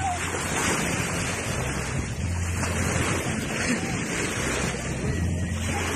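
Small waves washing and breaking in the shallows, with wind buffeting the microphone as a heavy low rumble.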